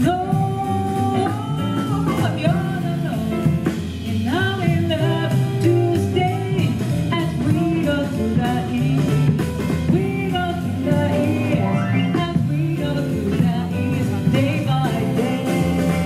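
Live jazz band music with a singer, a continuous melodic vocal line over steady accompaniment.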